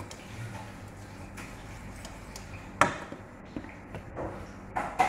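Kitchen handling sounds: a utensil knocking and scraping in a stainless steel pot and a plastic blender jar being picked up. There are a few scattered clicks, with one sharp knock a little under three seconds in and a short cluster of knocks near the end.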